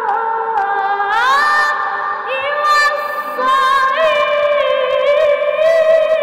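A boy reciting the Quran in the melodic qira'at style, unaccompanied. He holds long high notes that slide between pitches and waver with ornaments, and a new phrase begins about two seconds in.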